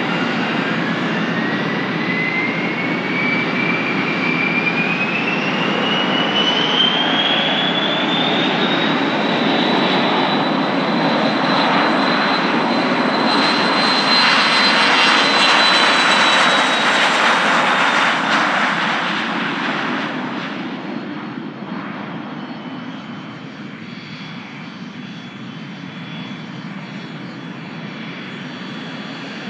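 Gulfstream G200 Galaxy's twin rear-mounted turbofan engines spooling up to takeoff thrust: a whine rises steadily in pitch over the first ten seconds, then holds high under a broad jet roar. The roar is loudest about halfway through as the jet rolls past on its takeoff run, then fades as it heads away down the runway.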